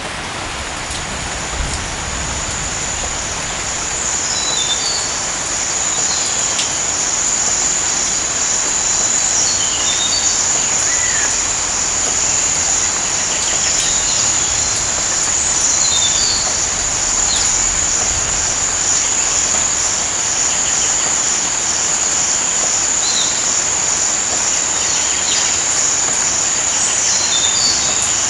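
Steady rain falling, with an insect trilling continuously at a high pitch and a few short bird chirps scattered through. The level builds slightly over the first few seconds, then holds steady.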